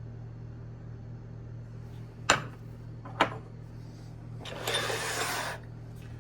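Steel wrenches being handled on a work surface: two sharp metal clinks about a second apart, then about a second of rubbing or sliding, over a steady low hum.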